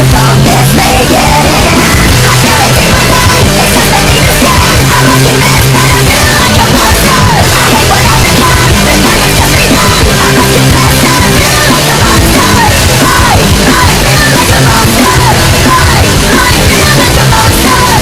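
Loud heavy metal music with distorted guitars and screamed vocals.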